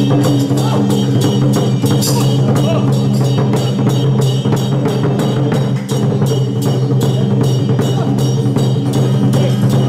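Traditional Taiwanese drum-and-cymbal percussion accompanying a Song Jiang Zhen martial-arts troupe, beating a steady, fast rhythm of about four strikes a second over a steady low hum.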